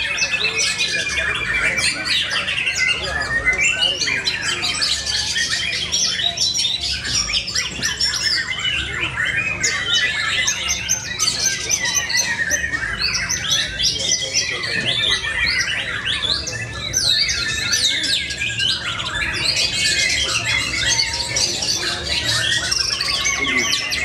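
White-rumped shama (murai batu) singing without a pause: a dense, unbroken stream of fast, varied high whistled phrases and calls.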